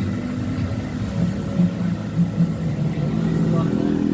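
A motor vehicle engine running steadily, a low-pitched drone that wavers slightly in pitch.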